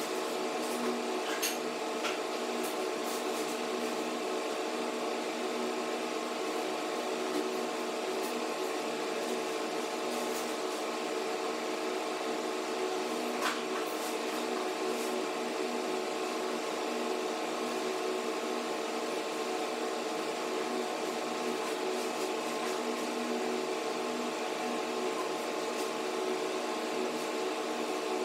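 A steady machine hum made of several held low tones, with a few faint clicks near the start and again about thirteen seconds in.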